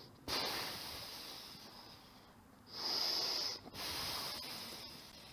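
A person breathing out forcefully three times during a core exercise, each exhale a hiss that starts sharply and fades.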